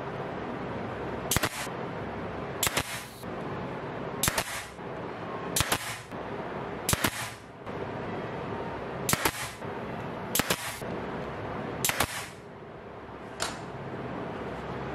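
Pneumatic brad nailer firing about nine times, roughly every one and a half seconds, driving nails through a plywood base into wooden blocks. Each shot is a sharp snap followed by a brief hiss, heard over a steady background hum.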